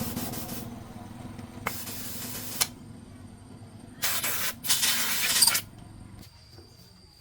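Three bursts of hissing spray, the last two the loudest, over a steady low machine hum that cuts off about six seconds in.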